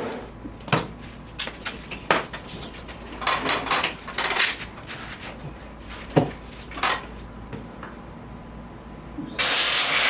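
Workshop handling noise: scattered clicks, knocks and short scrapes as hoop parts and tools are picked up and set down, then a loud hiss starting near the end.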